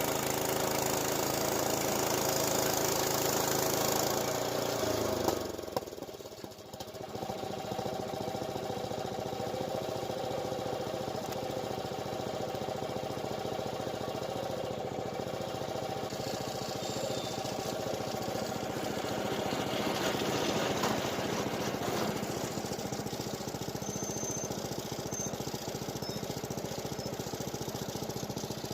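Small gasoline engine of the milling equipment running at steady speed. About five seconds in the sound drops away sharply, and a rougher, rapidly pulsing engine sound takes over and runs steadily.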